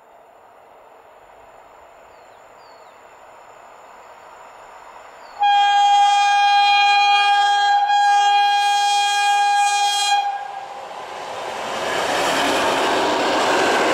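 EN61 electric multiple unit approaching: its rumble grows, then it sounds one loud horn blast of about five seconds, briefly broken near the middle. After the horn its wheels and motors rush past close by, loudly.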